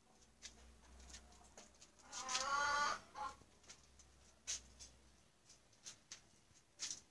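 A chicken calling: one drawn-out wavering cluck about two seconds in and a short one right after it, amid scattered light clicks and taps.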